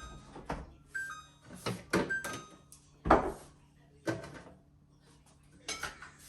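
Bottles and jars knocked and clinked as they are taken off the fridge door shelves and set down, a string of separate knocks. In the first two seconds a few short high beeps about a second apart: the fridge's door-open alarm.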